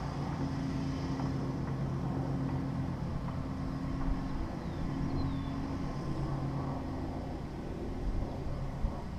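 Steady low engine drone of a lawn mower running, holding a couple of flat tones.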